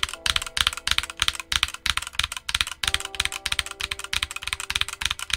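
Rapid typing on a Redragon Deimos K599 65% mechanical keyboard: a quick run of sharp key clacks from Outemu switches in hot-swap sockets, mounted on a steel plate with no case or plate foam.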